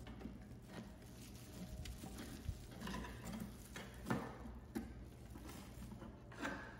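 Pliers working a rusty wire bail handle loose from the metal ears of a wooden ice cream freezer bucket, then the wire drawn out: scattered small scrapes, clinks and clicks of metal on metal and wood, the sharpest about four seconds in.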